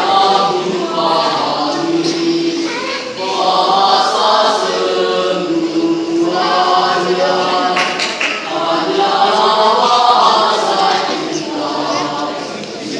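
A choir singing, in sustained sung phrases with short breaks between them.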